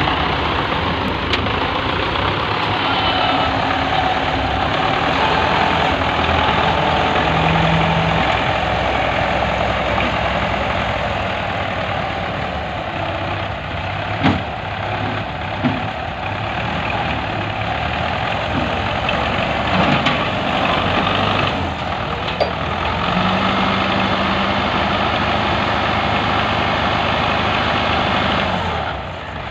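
Farm tractor's diesel engine running steadily while its front-end loader scoops and lifts a load, with a few short sharp knocks midway.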